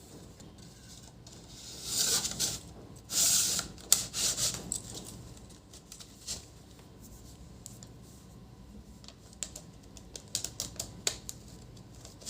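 Parts of a laser printer's fuser assembly being handled as a new fuser film is fitted. There are two rustling scrapes, then a run of light clicks and taps near the end.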